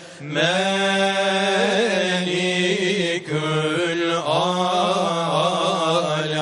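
Male voice chanting a Turkish Islamic hymn (ilahi) without instruments, in long ornamented phrases that waver around held notes over a steady low drone, with short breaks about 3 and 4 seconds in.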